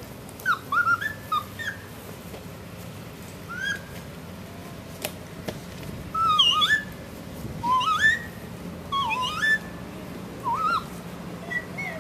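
Bird-like whistling in short bursts of chirps and swooping notes, some dipping and then rising sharply, with pauses between the bursts. A single sharp click about five seconds in.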